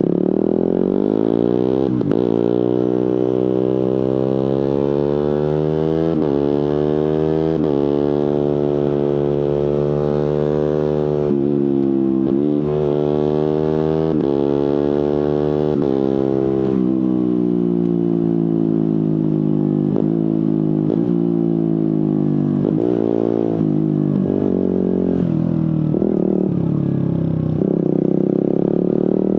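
Suzuki GSX-R150's single-cylinder engine through an aftermarket Prospeed exhaust, pulling up through the gears with several rising revs, each cut by a quick quickshifter upshift. It then slows as the engine note falls, with a run of short downshift blips from the autoblipper, and picks up again near the end.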